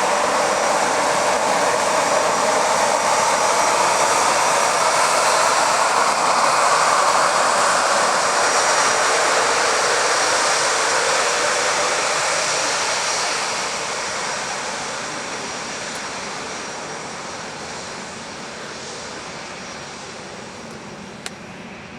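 Jet airliner's engines passing close by: a loud roar with a thin high whine, loudest about seven seconds in, then fading steadily away over the last ten seconds. A single sharp click comes just before the end.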